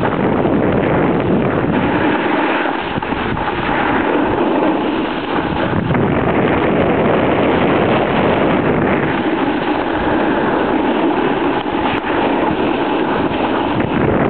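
Steady rushing noise of riding downhill on a snowboard: wind buffeting the camera microphone mixed with the board sliding over packed snow.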